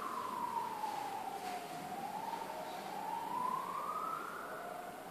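Emergency-vehicle siren in a slow wail: a single tone sliding down and then back up, one long sweep every few seconds.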